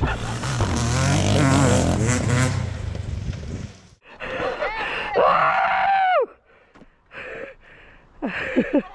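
Off-road engine revving hard at full throttle during a race start, with wind rushing on the microphone. About four seconds in it cuts off abruptly, followed by a drawn-out cry that falls in pitch and a few short shouts.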